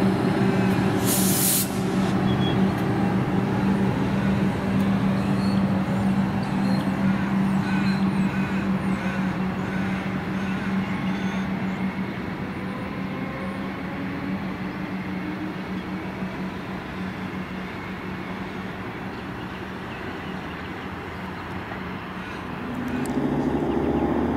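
A Comeng electric multiple-unit train standing at a platform, with a steady electrical hum that slowly fades. There is a short burst of compressed-air hiss from the brake gear about a second in, and a lower rumble swells briefly near the end.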